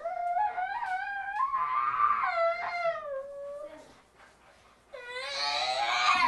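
A young boy wailing in distress, long drawn-out cries that rise and fall in pitch. They die away about four seconds in, then a louder, harsher scream starts near the end.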